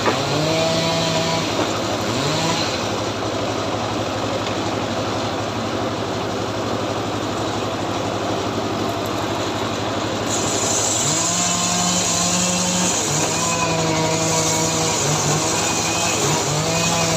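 Two-stroke chainsaw engine running at high revs, its pitch wavering up and down; it holds steadier through the middle, then revs up and down again from about two-thirds of the way through.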